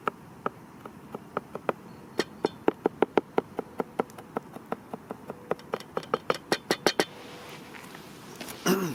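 Knife chopping garlic finely on a cutting board: a run of sharp taps that speeds up to about five a second before stopping, followed by a brief vocal sound near the end.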